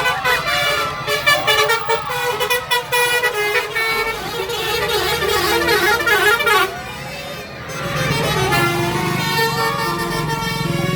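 A bus's multi-tone 'telolet' Basuri horn playing a melody of steady notes that change in steps. It breaks off briefly about seven seconds in, then plays again as the bus engine grows louder.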